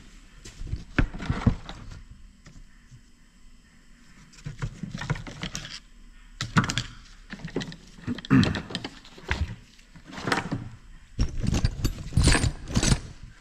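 Metal parts being handled on a workbench: groups of clinks and clunks, the busiest near the end.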